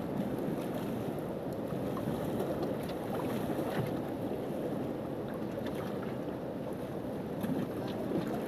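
Steady rush of a river flowing over rocks, with a few faint rustles and taps as a leaf is folded over the mouth of a bamboo cooking tube.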